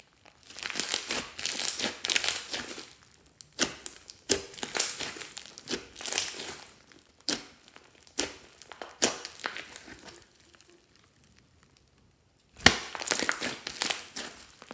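Hands kneading and squeezing soft slime mixed with foam beads, with wet crackling, squishing and popping of trapped air in bursts of a second or two. There is a pause of about two seconds near the end before the squeezing starts again.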